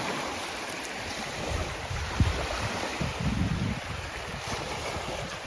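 Wind rumbling on the microphone over a steady hiss, with a brief sharp bump about two seconds in.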